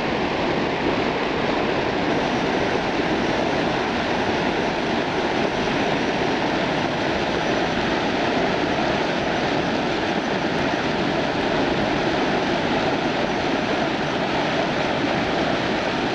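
Steady rush of water pouring over a low concrete weir and churning in the pool below it.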